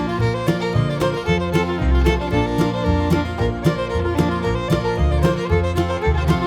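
Upbeat fiddle-and-guitar background music in a bluegrass style, with a steady beat.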